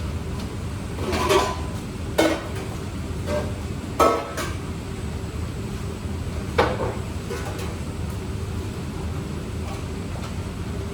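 Kitchenware being handled: four separate knocks and clinks, some with a short metallic ring, over a steady low hum.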